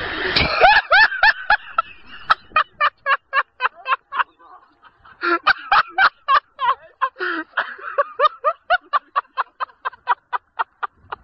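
A man laughing helplessly in a long run of high, cackling, rhythmic gasps, about three or four a second. The laughter breaks off for a moment near the middle and starts again. It begins right after a short splashing crash at the start.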